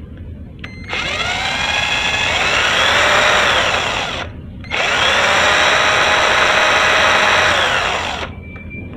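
Cordless drill/driver with a 36 V lithium battery run with no load, twice. The motor and gear whine rises in pitch as it speeds up, stops briefly about four seconds in, then runs again and winds down near the end. It is running normally.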